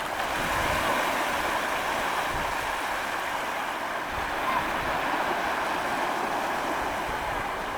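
Sea waves washing onto a beach: a steady rush of surf with wind rumbling on the microphone.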